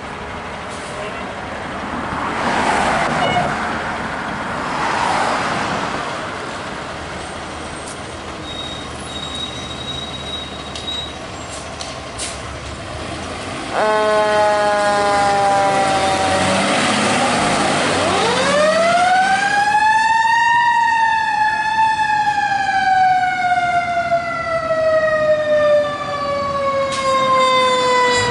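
Fire engine pulling out on a call: the truck's engine and road noise for the first half, then about halfway through a steady horn blast of several seconds. A siren then wails up, falls slowly for several seconds and starts to rise again near the end.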